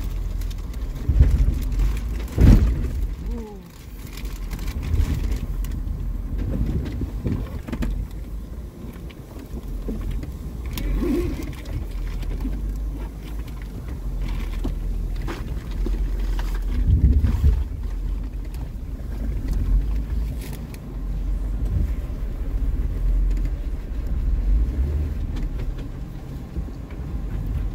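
Jeep Wrangler engine running low and steady, heard from inside the cabin while it crawls over rough ground, with scattered knocks and thumps; the loudest thump comes about two and a half seconds in.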